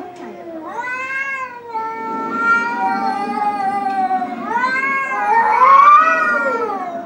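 Domestic cats yowling at each other nose to nose: long, drawn-out wailing calls that rise and then slowly fall in pitch, one after another, the loudest near the end. Such yowling is a cat's warning in a tense face-off.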